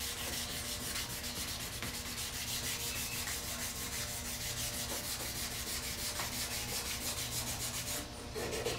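Sandpaper rubbed quickly back and forth by hand over a wooden knife handle: an even, rhythmic scratching of several strokes a second that stops about eight seconds in.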